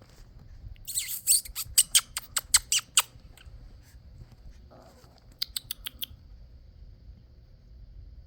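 A person making repeated kissing sounds, short sharp lip smacks: a quick run of about nine starting about a second in, then a second run of five a little past the middle.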